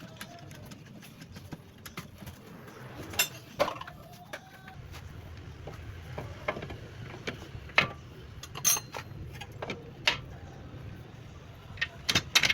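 Irregular sharp clicks and knocks, about a dozen, some in quick pairs, over a low steady hum.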